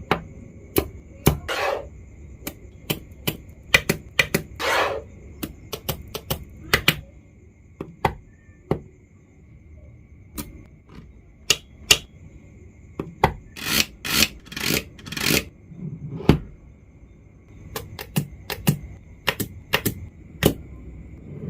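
Magnetic fidget toy pieces being handled: irregular sharp clicks as pieces snap and knock together, with short rubbing, sliding sounds between them, thickest around the middle of the stretch.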